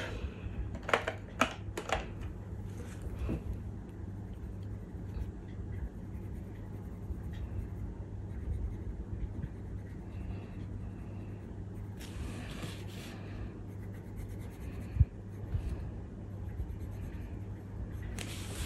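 Oil-based coloured pencil scratching across paper as a small area is coloured in, with a few light clicks about a second in. A louder rustle of paper near the end as the colouring page is moved.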